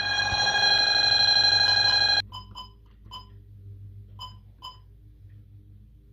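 Bosch GV4 security alarm's sounder sounding a steady tone, tripped by an opened window contact, which cuts off abruptly about two seconds in. It is followed by a few short beeps, typical of key presses on the alarm keypad.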